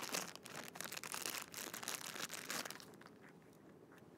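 Small plastic bag crinkling and rustling as an eyepiece is unwrapped from it, dying down after about three seconds.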